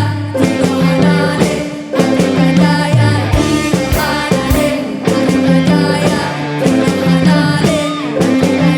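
Live ensemble music from a traditional Acehnese-style group: pitched melody instruments and possibly voice over repeating low notes and regular drum strokes.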